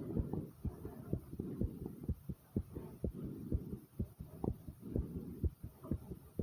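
A person's heartbeat pounding fast: a regular run of low thumps, about three a second.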